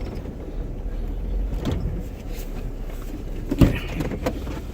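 Off-road vehicle engine running with a steady low rumble, with a sharp knock about three and a half seconds in.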